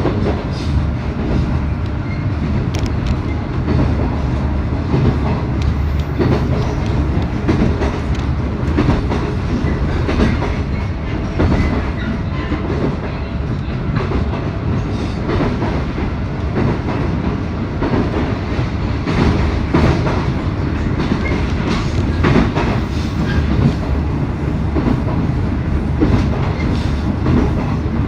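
719 series electric multiple unit running at speed: a steady low rumble with irregular wheel knocks over the rail joints.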